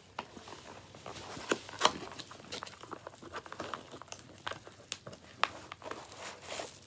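Packaging being unwrapped by hand: irregular crinkling and crackling, with a few sharper snaps about a second and a half in and again a little past five seconds.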